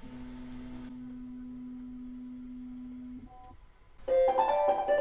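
Bambu Lab A1 3D printer's stepper motor giving a steady, even-pitched hum for about three seconds as the gantry lifts clear of the finished print, then a brief higher tone. Piano music starts about four seconds in and is the loudest sound.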